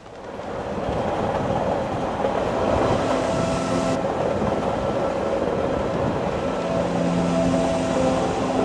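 Underground train running along the track: a steady rushing rumble that fades in at the start, with humming tones coming in about two and a half seconds in and again near the end.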